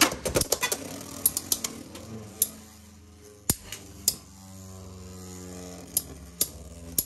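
Two Beyblade X spinning tops, RhinoHorn and LeonClaw, spinning in a plastic stadium just after launch. A quick run of clicks comes first, then separate sharp clacks as the tops strike each other, and from about halfway a steady whirring hum as they spin close together.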